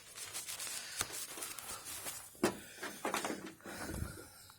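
Battery charger cable and clamps being handled and clipped onto a car battery: several sharp clicks and knocks with rustling between them.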